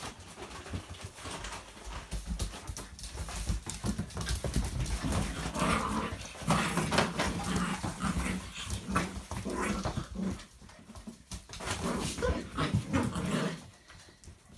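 A litter of seven-week-old puppies playing, their claws and paws skittering on a laminate floor, with little growls and whines mixed in.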